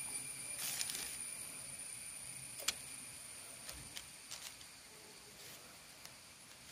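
Faint handling sounds: a few light clicks and crinkles of a plastic sheet as a large cucumber is moved about on it, over a steady faint high whine.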